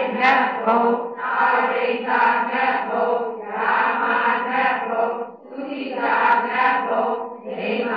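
A group of voices reciting together in Burmese in a chant-like rhythm, in phrases of a second or two with short breaks between them. The class is repeating a memorised Buddhist Abhidhamma list aloud in unison.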